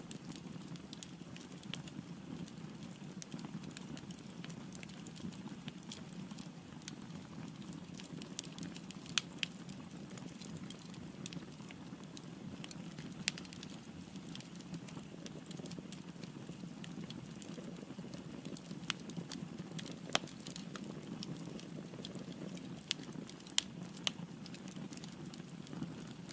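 Firewood burning in a fireplace: a steady low rumble of flames with irregular sharp crackles and pops, a few louder snaps among them.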